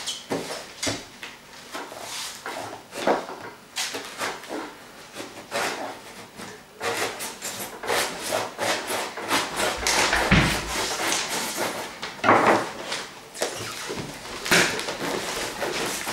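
A knife slitting the packing tape on a cardboard box, then the flaps being pulled open: a run of short scrapes, rips and knocks of tape and cardboard, busier in the second half.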